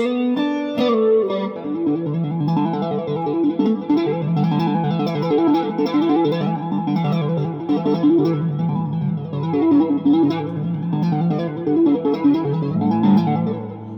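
Electric guitar, a Japanese Fender Telecaster through a Vox AC15 amp, played as a steady stream of picked notes and chords that starts suddenly and ends on a held low chord.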